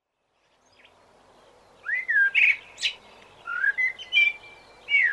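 A songbird singing: several short phrases of gliding whistles and quick chirps, beginning about two seconds in, over a faint background hiss.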